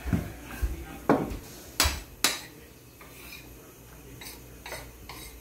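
Wooden rolling pin working dumpling dough on a stainless steel counter, knocking sharply against the metal about five times in the first two and a half seconds, then quieter handling of the dough.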